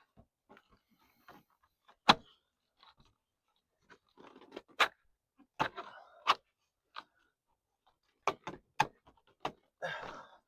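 Vinyl fence picket and rail knocking and clicking as the loose board is worked back into the rail, in irregular sharp knocks with some scraping rustle between them. The loudest knock comes about two seconds in.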